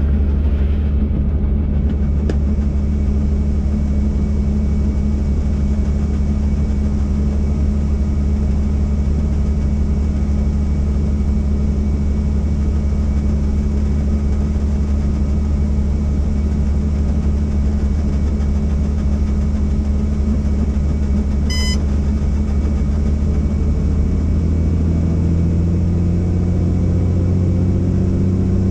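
Helicopter engine and rotor drone heard inside the cabin: a loud, steady, low drone whose pitch rises slightly in the last few seconds. A short electronic beep sounds about three-quarters of the way through.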